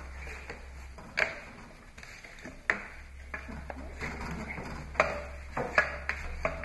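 Rubber strap wrench being worked on a motorcycle's tight spin-on oil filter: irregular sharp clicks and knocks as the handle and strap shift and grip, over a steady low hum.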